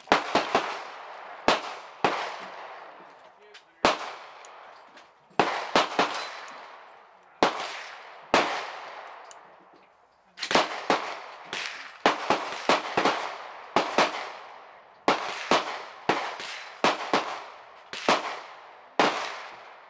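Gunfire from a Draco AK pistol in 7.62×39: about two dozen single shots at an uneven pace, often a second or two apart and sometimes in quick pairs, each followed by a long echo. The unhurried single shots fit aimed fire while sighting in new sights.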